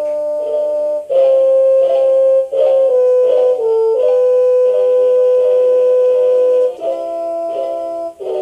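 FD464S melody alarm clock playing its built-in electronic tune: a melody of smooth, sustained notes over a held accompaniment, with one long held note in the middle.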